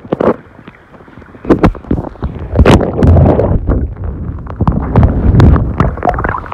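River water splashing and sloshing over a camera held at the water's surface by a swimmer, with many sharp splashes and heavy low rumbles as the camera dips in and out of the water.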